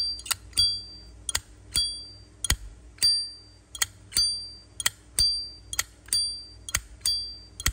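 Zippo lighter's hinged lid flicked open and snapped shut over and over, about two sharp clicks a second, each with a short bell-like ring. This is the 'âm chuông' (bell tone) that buyers listen for in a Zippo's lid action.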